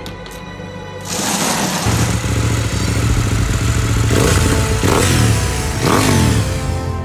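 KTM RC sport bike's single-cylinder engine: a burst of noise about a second in, then the engine running, revved up and back down three times in the second half.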